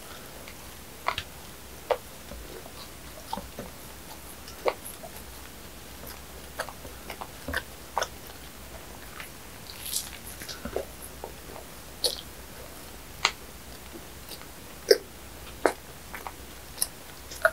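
Close-miked chewing and mouth sounds of someone eating bread: scattered sharp clicks, smacks and small crackles, about one or two a second.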